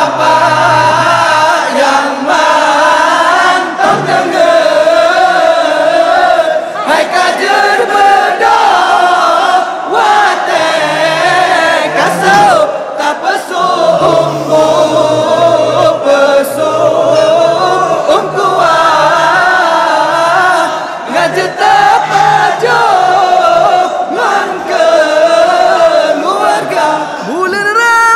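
Several voices singing together in a wavering, ornamented melody over musical backing: a Ramadan sahur wake-up song.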